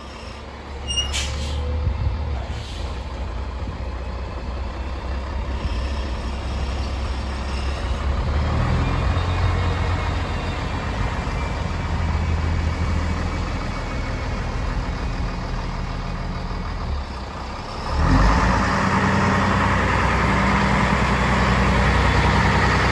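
Scania Tgb 30 truck's diesel engine running as the truck drives slowly over gravel, getting clearly louder about three-quarters of the way through as it comes close.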